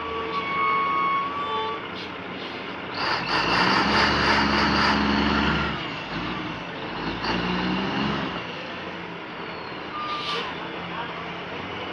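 Heavy diesel logging truck engine running and working under load, growing louder for about three seconds roughly three seconds in, with an air hiss near the end.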